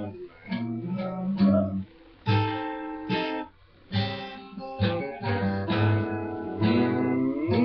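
Guitar in an unusual alternate tuning, strummed and plucked in chords with short breaks between phrases; near the end a note slides upward in pitch.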